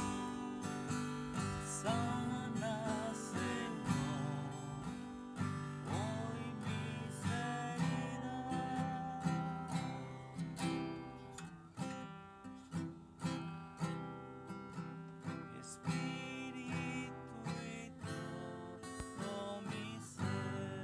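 Acoustic guitar strumming chords in a steady rhythm, playing the intro of a Spanish-language worship song.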